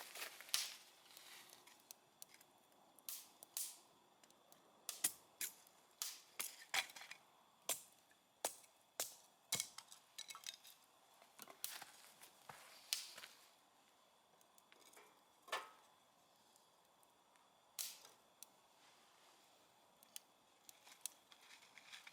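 Wood fire crackling, with irregular sharp pops and snaps from the burning firewood, thinning out to occasional pops in the last third.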